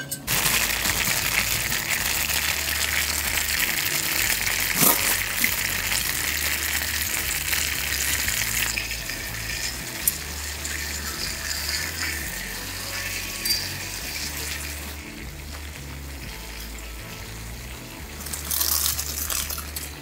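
Bean sprouts sizzling in a small frying pan on a cartridge gas stove: a loud hiss that eases after about nine seconds, then flares up again briefly near the end. Background music plays underneath.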